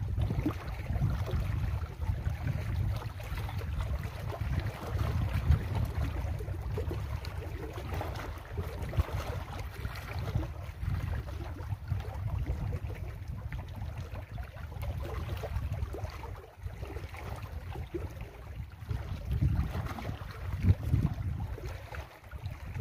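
Wind buffeting the microphone in an uneven, low rumble, over small lake waves lapping against shoreline rocks.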